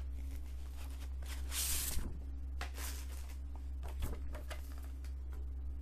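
Handling of a Blu-ray case and its paper insert: a few short paper rustles and a couple of small clicks from the plastic case, over a steady low hum.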